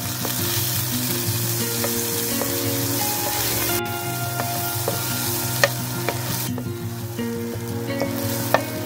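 Margarine melting and sizzling in a hot nonstick frying pan while a wooden spatula stirs and spreads it, with a steady frying hiss. Two sharp taps of the spatula on the pan come about halfway through and near the end.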